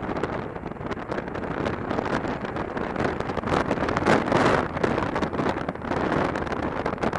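Wind buffeting on a helmet-mounted camera's microphone while a motorcycle is ridden, with the engine's sound buried in the rush. A stronger gust swells about four seconds in.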